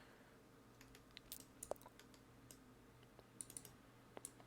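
Near silence: room tone with a faint steady hum and a handful of faint, scattered clicks, typical of someone working a computer mouse and keyboard.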